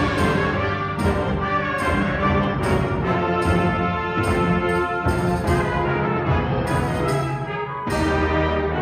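Student concert band of woodwind, brass and percussion playing a full, sustained passage, with the brass prominent.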